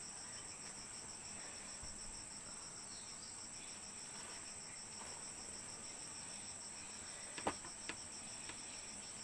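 Insects chirping steadily, crickets or similar: one continuous high trill and a slightly lower trill that pulses several times a second. A single sharp click comes about seven and a half seconds in.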